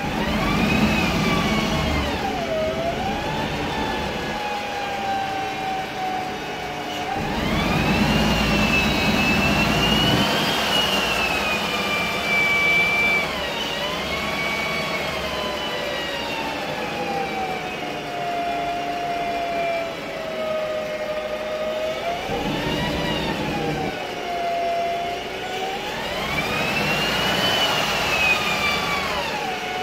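Voith DIWA 864.3 automatic gearbox of a 2007 MAN Lion's Classic CNG bus whining, with the MAN E2876 gas engine running underneath. The whine rises in pitch as the bus pulls away, at the start, again about seven seconds in and near the end, and falls slowly in pitch as the bus slows in between.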